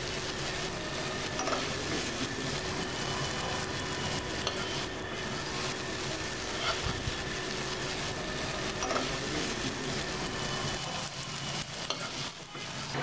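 Mixed vegetables still sizzling in a hot non-stick frying pan, a steady hiss, while a metal spoon lightly scrapes and scoops them out of the pan.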